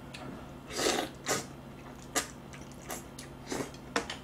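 Close-miked eating: a couple of short noisy bursts of chewing a mouthful of noodles and bean sprouts about a second in, then scattered sharp clicks of chopsticks against dishes.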